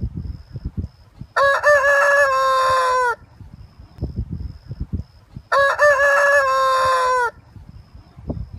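Rooster crowing twice, each crow a long call of nearly two seconds that holds its pitch and then falls away at the end. Low, irregular rumbling noise sits between the crows.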